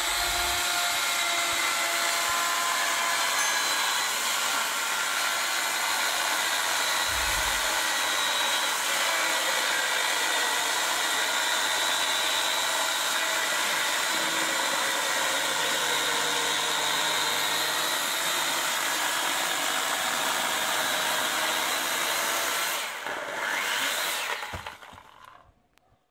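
Husqvarna 420 EL 2000 W electric chainsaw running steadily under load as its chain cuts through a log, a continuous motor whine with the chain noise. Near the end the saw eases off, runs briefly again, then stops and winds down.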